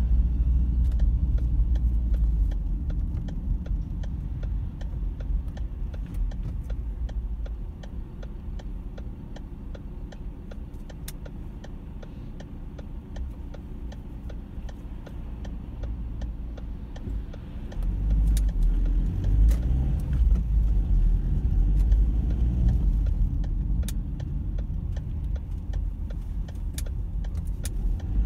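Car cabin noise while driving: a low engine and road rumble that eases off for several seconds, then swells again about two-thirds of the way through, with faint scattered ticks over it.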